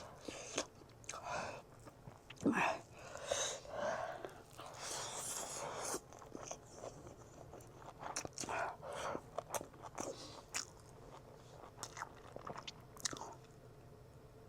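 Close-miked chewing and biting of a meal, with scattered short mouth clicks and smacks.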